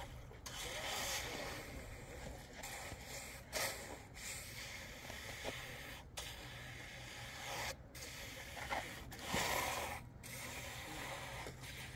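Trowel scraping and rubbing over wet cement in uneven strokes, with louder swells about a second in, at three and a half seconds and near nine seconds.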